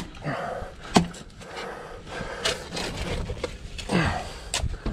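Shovel digging into packed dirt: a few sharp strikes of the blade, about a second in and again near the end, with scraping of soil between them.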